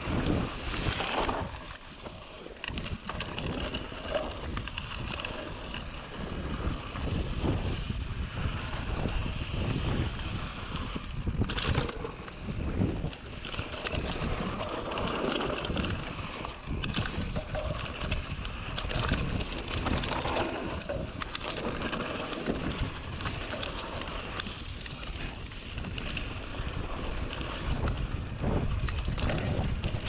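Polygon Siskiu D5 full-suspension mountain bike descending a dirt trail, heard from an on-board action camera: continuous wind buffeting on the microphone, with tyres on dirt and rock and the bike rattling over bumps.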